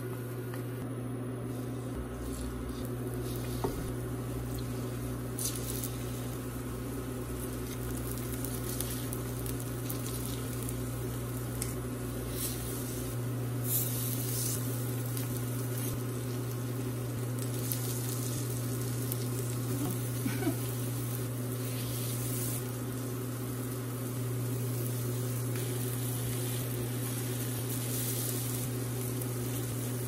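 Batter-coated thin slices of Korean radish frying in oil in a pan: a steady sizzle with scattered small pops, over a steady low hum.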